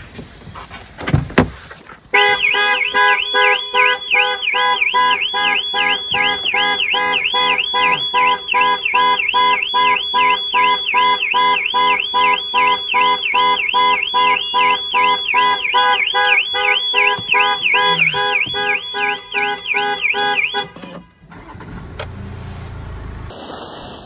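Land Rover factory anti-theft alarm siren going off: a loud electronic tone warbling rapidly up and down over steady lower tones. It starts about two seconds in, just after a short knock, and cuts off suddenly near the end.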